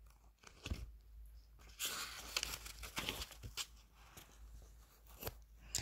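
Paperback book pages rustling and crinkling as a page is turned and the book is handled, with a few small knocks. The rustle is loudest from about two to three and a half seconds in.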